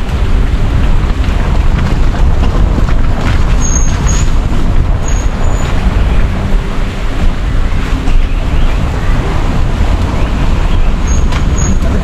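Wind buffeting a microphone on the roof of a moving car, over the steady low rumble of the car driving along a rough, wet lane.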